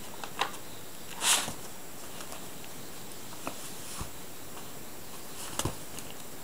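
A mother cat and kitten play-fighting: a short crinkle of a paper bag about a second in, then a few soft thumps and scuffs of paws and bodies on a tatami mat.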